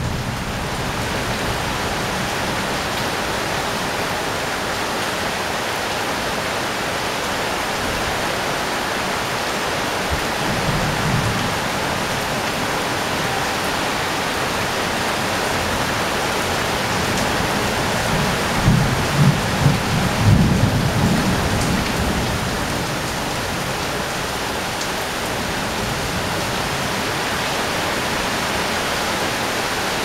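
Heavy rain falling steadily on a corrugated roof, an even hiss. A low rumble comes about ten seconds in, and a louder one at about eighteen to twenty-one seconds.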